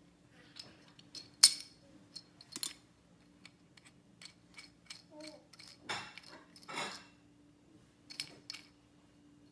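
Small pieces of a toy building kit clicking and clattering as they are handled, a string of sharp clicks and knocks with the loudest about one and a half seconds in.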